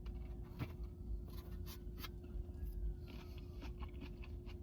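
Faint, scattered light clicks and scrapes of someone eating from a takeout container, over a steady faint hum.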